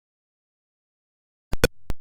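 Atari Pong sound effect: after silence, a short cluster of sharp electronic blips about one and a half seconds in.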